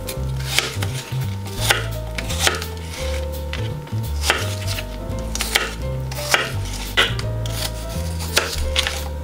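Kitchen knife chopping apple pieces on a plastic cutting board: a run of sharp knocks as the blade goes through the fruit and hits the board, a little more than one a second. Soft background music runs underneath.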